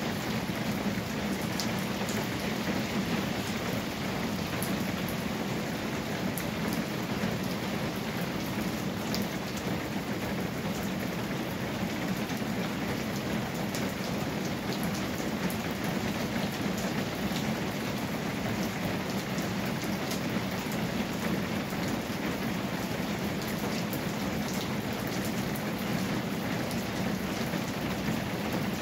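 Steady rain falling on a tin roof, with scattered sharper ticks of single drops.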